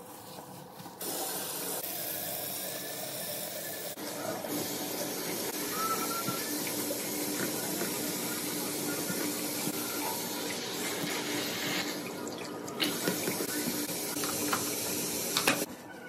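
Bathroom sink tap running steadily into the basin while the chrome faucet is scrubbed with a sponge and brush. A few knocks and scrapes come near the end, and the water cuts off just before the end.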